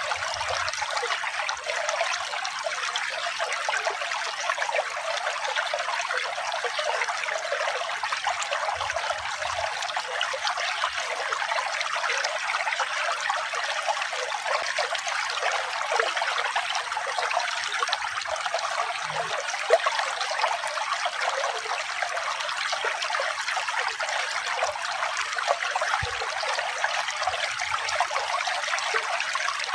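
Water trickling and splashing steadily, like a small stream or waterfall, with no pauses or changes.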